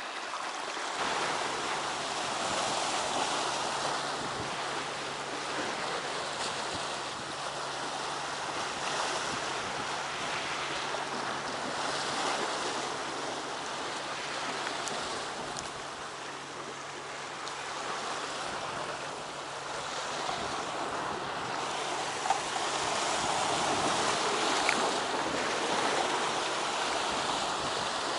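Sea surf washing and breaking against a rocky shoreline, a steady rushing noise.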